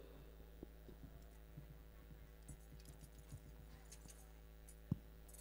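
Near silence: a low, steady mains hum from the PA sound system, with faint scattered clicks and one sharper click near the end.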